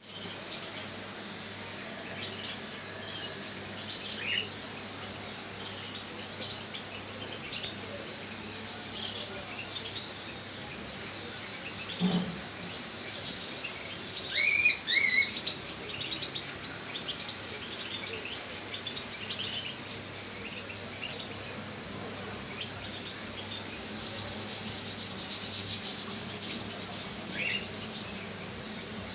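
Small songbirds chirping and calling, many short high calls scattered over a steady low hum. A loud pair of sharp calls comes about halfway through, and a denser burst of high chatter comes near the end.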